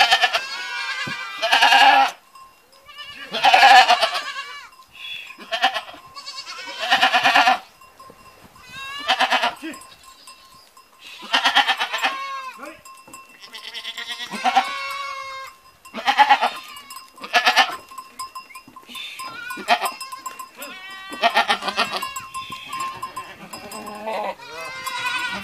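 A herd of goats bleating loudly, one call after another about every two seconds, as mother goats and their kids call to each other.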